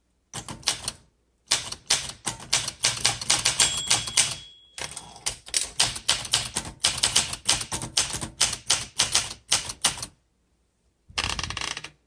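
1965 Olympia SM9 manual typewriter being typed on fast: rapid runs of key strikes, several a second, with brief pauses, stopping about ten seconds in. A thin ringing tone sounds under the keystrokes near four seconds in, and near the end comes a short rattling sweep of about a second as the carriage is returned.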